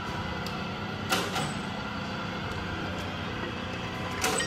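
A steady, low engine-like hum, with two sharp knocks: one about a second in and one near the end.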